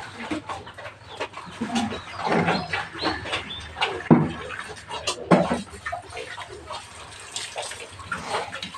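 Farmyard animal calls, chicken clucks among them, with scattered splashes and knocks of water sloshed from a bucket onto a wet concrete pig-pen floor. The louder splashes come about two, four and five seconds in.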